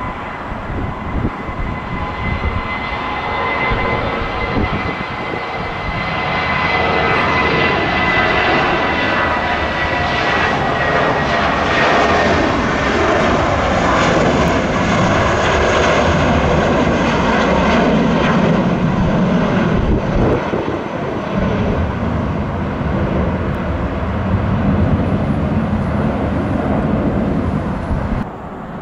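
Airbus A320-232's twin IAE V2500 turbofans at takeoff thrust, the jet taking off and going past. A high engine whine slides slowly down in pitch as the sound builds to its loudest about halfway through, then leaves a low rumble that cuts off suddenly near the end.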